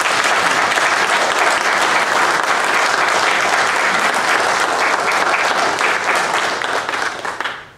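Audience applauding: dense, steady clapping that tapers off and stops near the end.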